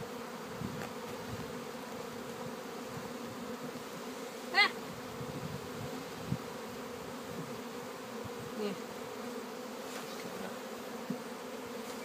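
Honeybees buzzing in numbers at an open hive box, a steady low hum. About halfway through, one short high chirp stands out above it.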